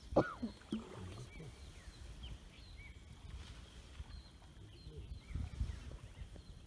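Birds calling from a forested riverbank: one loud call that rises and falls right at the start, then short chirps throughout, over a low rumble.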